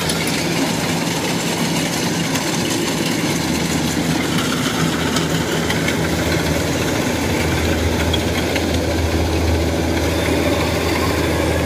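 Kubota DC-93 rice combine harvester's diesel engine and threshing machinery running steadily as it drives on its tracks and cuts rice. A deep hum grows stronger about a third of the way in and again past the middle as the machine comes close.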